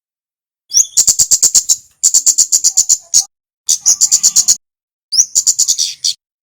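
Male kemade (kemlade merah) singing in four fast, chattering phrases of sharp, high-pitched notes, about eight to ten notes a second, with short gaps between phrases.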